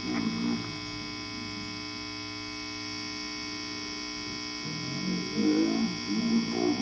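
Steady mains hum from an ungrounded turntable feeding a cheap workbench amplifier, under the playback of a spoken-word vinyl record; a low voice from the record comes in briefly at the start and again from about five seconds in.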